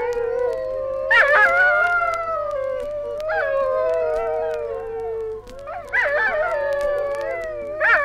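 A mournful dingo chorus: several dingoes howling together, their long, slowly falling howls overlapping, with fresh howls joining about a second in, around three seconds, and around six seconds. Faint record-surface clicks run through it.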